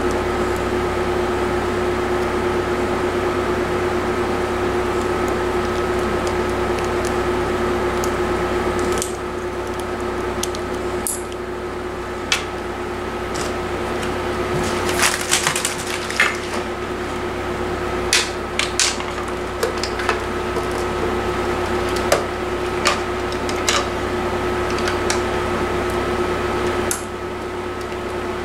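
Scattered clicks and knocks of plastic telephone bases and cord plugs being handled and set down on a wooden table, over a steady background hum. The clicks start about a third of the way in and come irregularly after that.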